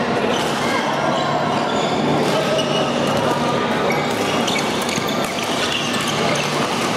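Badminton play: sharp racket hits on a shuttlecock and short shoe squeaks on the court floor, over a background of chatter echoing in a large sports hall.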